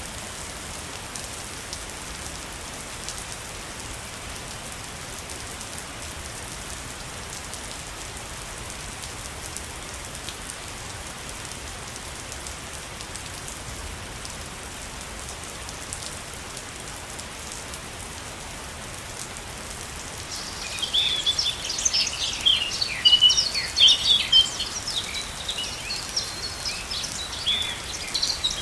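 Steady hiss of falling water from a waterfall. About two-thirds of the way through, birds start chirping over it: quick, high, repeated chirps that become the loudest sound.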